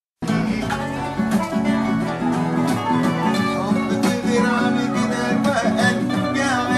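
Qanun and acoustic guitar playing together: a plucked qanun melody over a repeating guitar accompaniment. There is a short dropout at the very start.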